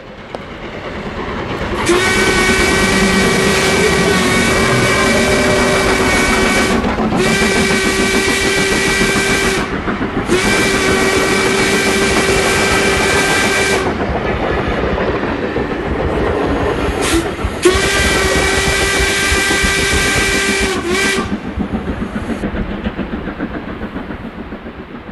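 Steam train running with its whistle blowing four long blasts: three in quick succession, then after a pause a fourth. The rumble of the train builds up at the start and fades away near the end.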